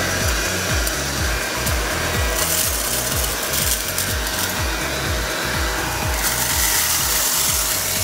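Redmond cyclonic vacuum cleaner running, its turbo brush pushed back and forth over a carpet as it sucks up spilled millet grains: a steady hiss with a rasping, rubbing sound from the brush on the pile.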